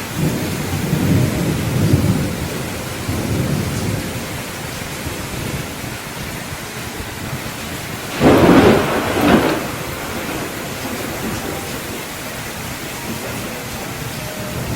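Steady monsoon rain, with low thunder rumbling through the first four seconds. About eight seconds in comes a louder, sharper thunderclap in two peaks.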